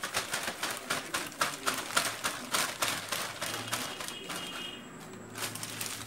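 Clear plastic packaging crinkling and rustling as a wrapped appliance part is handled and pulled from a cardboard box, in quick irregular crackles that thin out about five seconds in.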